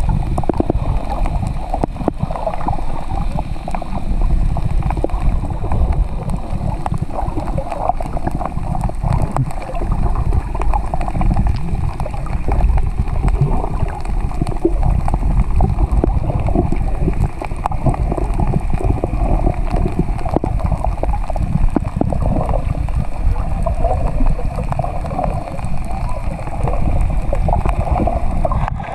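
Muffled, steady rushing and gurgling of water as heard by an underwater camera.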